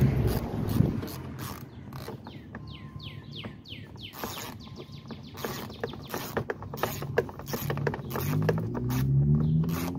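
Small hand ratchet with a 10 mm socket backing out the door panel's screws: repeated runs of quick pawl clicks.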